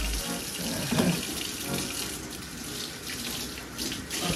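Kitchen faucet running water into a sink.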